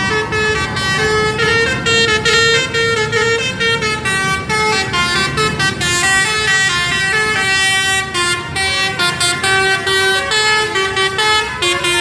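Telolet basuri melody horn on a garbage truck playing a fast tune, its notes stepping up and down one after another, over a low rumble.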